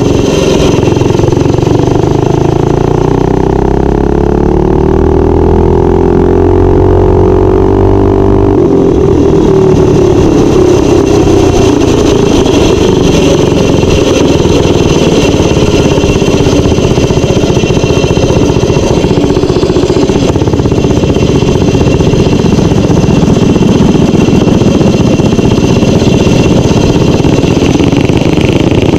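Minibike's small engine running under throttle at riding speed; the engine note climbs over the first several seconds, then holds fairly steady. Wind and road noise rumble underneath.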